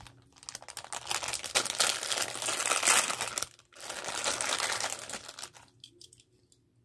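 Plastic and cardboard packaging of a Hot Wheels die-cast car being crinkled and torn open, in two long spells of crackling that stop about two-thirds of the way through, followed by a few faint clicks.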